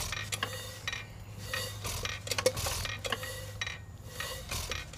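4 hp Nelson Brothers hit-and-miss engine being turned over by hand on its flywheels without firing yet, priming fuel up to the carburetor. Its valve gear and ignitor give irregular metallic clicks and clinks, over a steady low hum.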